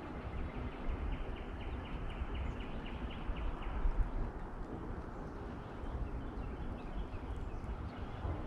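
Hiker's footsteps on a forest trail with outdoor ambience and wind rumble. For about three seconds near the start, a faint quick series of high notes repeats about five times a second.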